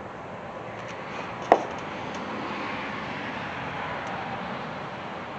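Steady background noise with one sharp click about a second and a half in, and a faint steady hum from about two seconds in.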